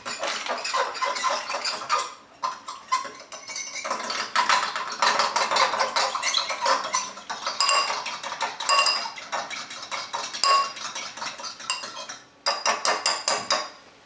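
A metal fork whisking a cornstarch and water slurry in a ceramic bowl, rapid clinking of the tines against the bowl, with a short pause near the end and then one more quick run of strokes.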